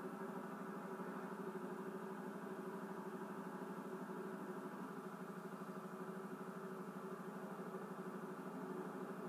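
An engine running steadily with a fast, even pulse, heard thinly through a television speaker.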